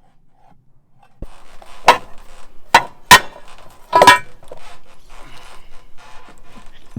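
Four sharp metallic clanks, each with a short ringing note, coming roughly a second apart, followed by quieter scraping and handling of metal parts as a bent boat fitting is worked loose.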